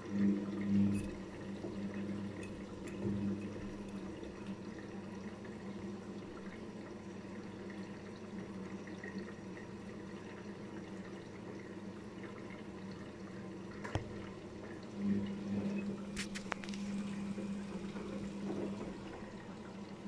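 Daewoo DWD-FT1013 front-loading washing machine in its rinse, the drum turning slowly with wet laundry and water splashing inside. The motor's low hum swells twice, at the start and again about three quarters of the way through, as the drum is driven, with a few light clicks.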